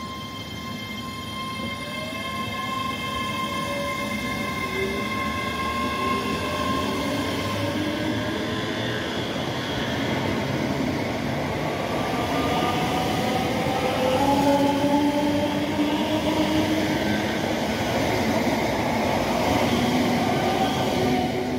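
ScotRail Class 385 electric multiple unit pulling away and passing close by: the whine of its traction equipment rises slowly in pitch as it gathers speed, over a running noise from wheels on the rails that grows louder as the carriages go past.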